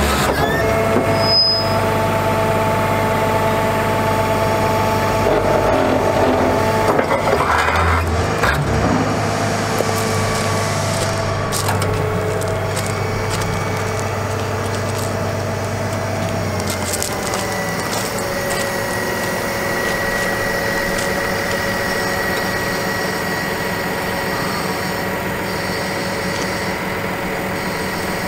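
Altec DC47TR digger derrick running off the truck's engine, with a steady hydraulic whine as the outriggers are lowered and pressed onto gravel, and some crunching and cracking of gravel. A little past halfway the whine moves to a higher pitch.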